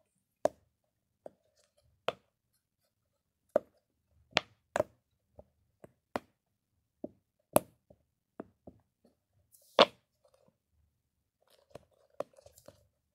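Silicone pop-it fidget ball having its bubbles pushed in one by one: an irregular series of sharp pops, some much louder than others, with short quiet gaps between.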